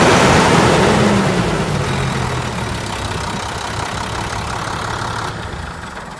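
International DT inline-six turbodiesel engine running. Its pitch drops over the first couple of seconds as it settles to a steady idle, and the sound fades near the end.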